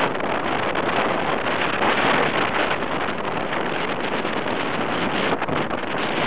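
Steady wind rushing over the microphone while riding on a Honda motorcycle, with the engine and the hiss of tyres on a wet road beneath it.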